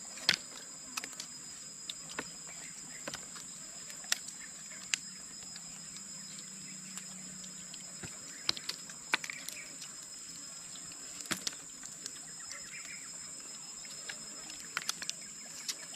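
Crab being eaten: irregular sharp cracks and crunches of shell being bitten and chewed, some louder than others. A steady high-pitched whine sits underneath.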